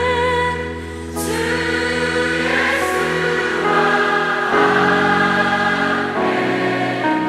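Live singing of a Korean hymn: held sung notes over steady instrumental accompaniment, with the sound of a choir.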